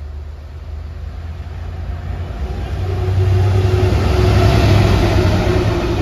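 GBRf Class 66 diesel-electric freight locomotive, with its two-stroke V12 engine, approaching and passing with a low rumble and steady hum. The sound grows to its loudest about four to five seconds in as the locomotive goes by, then eases slightly as the loaded wagons roll past.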